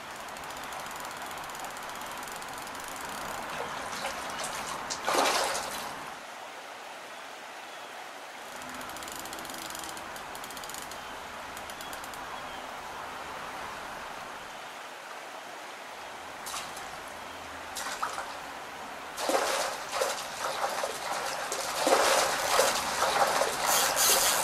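Fast-flowing river water rushing and rippling past close by, with a few short, louder rough noises about five seconds in and several more near the end.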